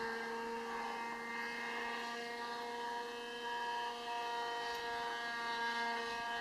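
Electric motor and propeller of a scratch-built foam RC plane whining steadily in flight, holding an even pitch.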